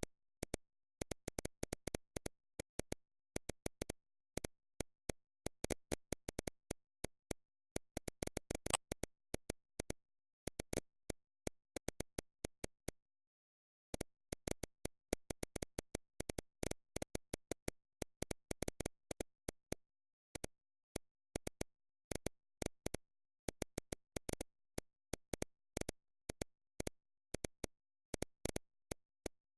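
Irregular sharp clicks, several a second, with dead silence between them and a pause of about a second midway.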